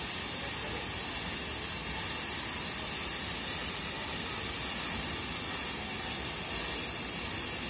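Fountain fireworks on a castillo, a pole-mounted ground fireworks frame, spraying sparks with a steady, even hiss.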